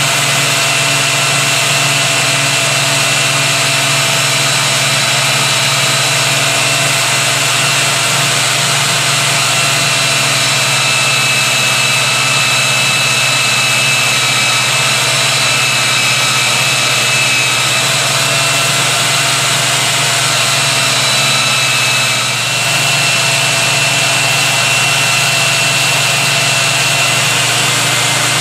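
Benchtop bandsaw's motor running steadily with a constant whine while a slab of knife-handle material is worked at the blade. There is a brief dip in level about 22 seconds in.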